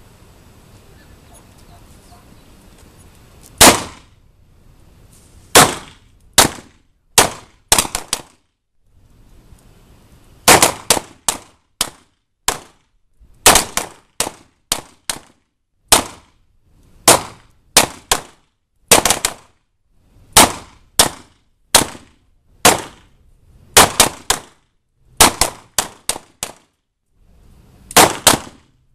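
Handgun shots from several shooters firing at will: about thirty sharp reports at uneven intervals, starting a few seconds in, some coming two or three close together.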